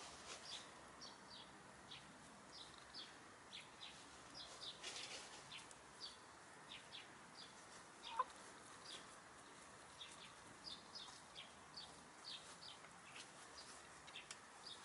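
A hen gives a single short cluck about eight seconds in, over faint, frequent high-pitched chirps.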